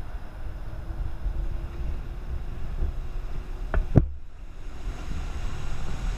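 Outboard motor of a small Craig Cat catamaran running at speed as the boat approaches and passes close, a faint steady whine under heavy wind rumble on the microphone. Two sharp knocks just before four seconds in.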